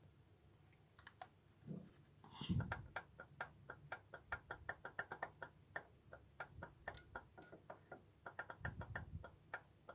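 Small engine, exhaust and spark plug removed, turned over slowly by hand at its ignition flywheel: a steady run of light mechanical clicks, about four to five a second, with a few duller knocks among them.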